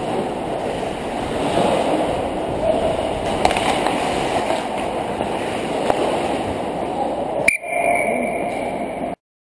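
Ice hockey play heard through a helmet-mounted GoPro Hero 2: a steady muffled rush of skating and movement, with sharp stick and puck clacks now and then. A louder click comes shortly before the end, and then the sound cuts out suddenly.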